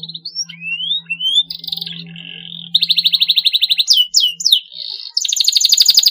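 Canary singing: a steady trill, then rising whistled glides, then fast trills of rapidly repeated notes about three seconds in and again near the end. A faint low steady hum sounds under the first half.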